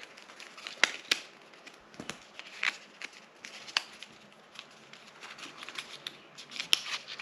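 A small printed paper blind box and its wrapping being handled and opened by hand: irregular paper rustling and crinkling with scattered sharp clicks and crackles.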